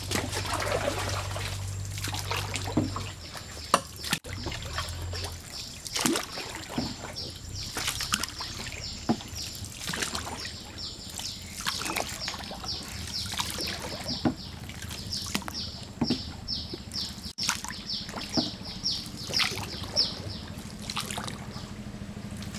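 Small wooden rowing boat moving through a canal, with the oar splashing and water sloshing and trickling at each stroke every second or two. Rapid high chirping from an animal runs alongside from about four seconds in.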